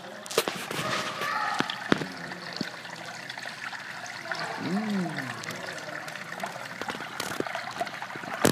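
Steady trickle of water in a turtle tank, with scattered sharp clicks and, about five seconds in, one short rising-and-falling voice sound.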